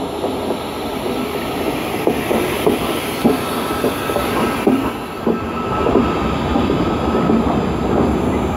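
Class 88 electro-diesel locomotive and its container wagons rolling slowly past on arrival: a steady rail rumble with wheels clicking over the rail joints every half second or so.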